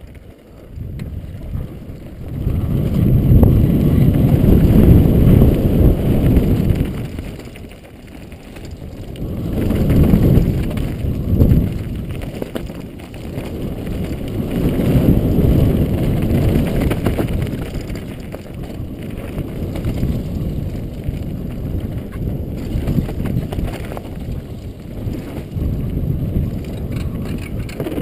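Wind rumble on a helmet-mounted camera and knobby mountain-bike tyres on dirt and gravel during a fast downhill descent, swelling and easing with speed. It is loudest a few seconds in and again around a third and a half of the way through.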